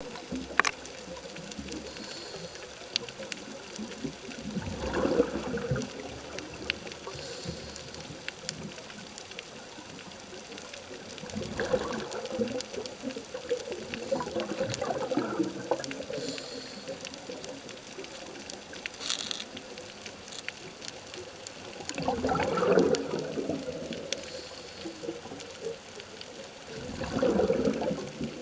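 Scuba diver's regulator breathing heard underwater: a bubbling exhalation every five to six seconds, with a faint hiss of inhalation between them. Faint scattered clicks sound throughout.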